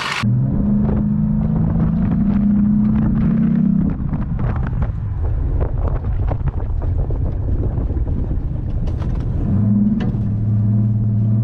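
Off-road vehicle driving on a rough dirt trail, heard through a roof-mounted camera: a steady engine drone with wind on the microphone and short knocks and rattles from the bumps. The drone weakens about four seconds in and comes back strongly near the end.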